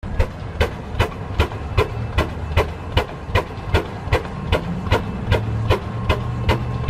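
Engine exhaust stack puffing in a steady beat, about two and a half sharp exhaust beats a second over a low rumble, white vapour blowing out of the pipe with each beat.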